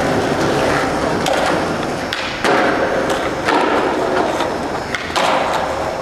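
Skateboard wheels rolling on a concrete parking-garage floor, with a few sharp board knocks from pops and landings, about two and a half, three and a half and five seconds in.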